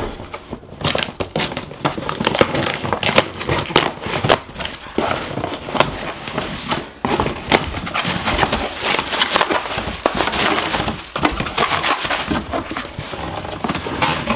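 A box being opened and its packaging handled and unwrapped: a dense, irregular run of crinkling, crackling and rustling.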